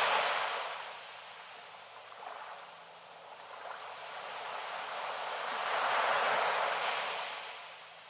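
Small waves washing up onto a sandy beach: a hiss of surf that fades after the opening wash, then swells again to a second peak about six seconds in and dies away near the end.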